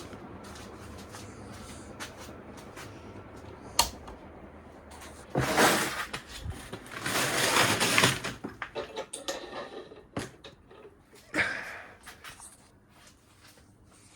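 A three-metal-bladed Martec ceiling fan coasting down after being switched off, a steady whoosh with a faint hum and basically no bearing noise, fading away toward the end. A sharp click comes nearly four seconds in, and two loud noisy bursts of about a second each come around the middle, followed by scattered clicks.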